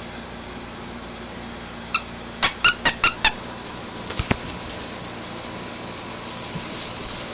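A squeaky dog toy squeezed five times in quick succession, sharp and loud. Softer scattered clicks and scuffling follow.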